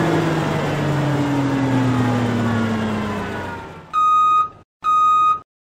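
Outro logo sound effect: a loud rush with several tones gliding slowly down, fading away over about three seconds, then two short steady electronic beeps like a reversing alarm near the end.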